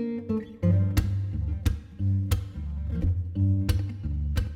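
Background music: strummed acoustic guitar with low bass notes, chords struck at a steady pace.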